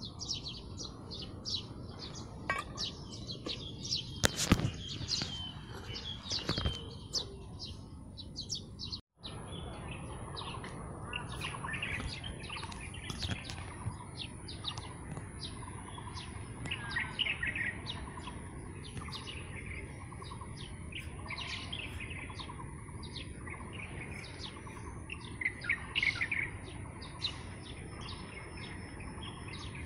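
Many birds chirping and calling, short overlapping calls, over a steady high-pitched insect hum. A sharp knock about four seconds in, and the sound cuts out for an instant about nine seconds in.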